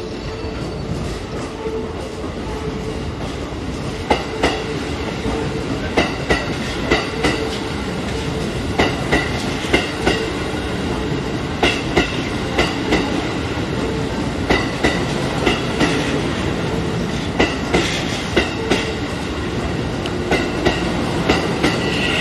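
Keikyu New 1000-series electric train running steadily, its wheels clacking over rail joints in pairs about every second, over a steady running rumble that grows slightly louder.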